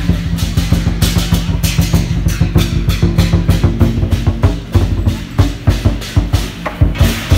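Lion dance percussion: a large Chinese barrel drum beaten in a fast, driving rhythm, with metal percussion crashing over it.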